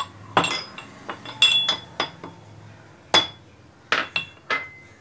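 Steel pestle pounding green cardamom seeds in a small steel mortar: about a dozen irregular, ringing metal clinks.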